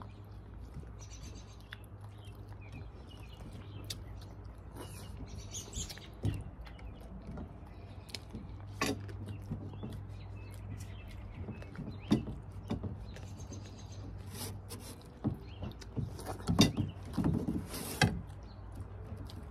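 Cutlery clicking and scraping against a plate during a meal, in irregular knocks that grow more frequent near the end, over a steady low hum that stops about three-quarters of the way through, with faint high chirping in the background.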